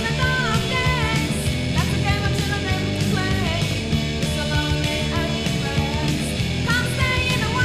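Late-1980s noise pop rock recording: electric guitar band with a steady beat and melody lines that slide in pitch.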